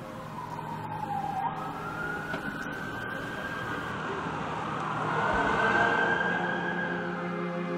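An emergency vehicle's siren wailing in slow sweeps that dip and rise in pitch, loudest just past the middle and easing near the end, over the noise of street traffic.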